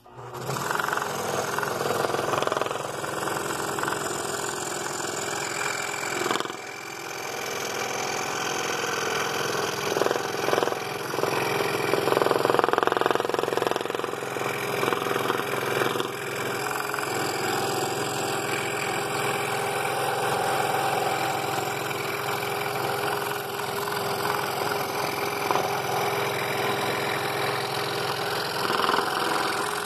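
Scroll saw running at high speed, its blade cutting a tight internal curve in half-inch walnut; the sound dips briefly about six seconds in.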